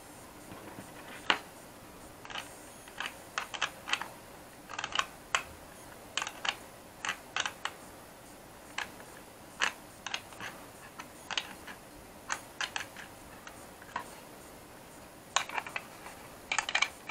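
Irregular sharp clicks and taps of a small metal wrench working the nut of a brass antenna connector in a plastic remote-controller shell, as the connector is tightened in place. The clicks come in uneven clusters, with a loud one about a second in and a quick run near the end.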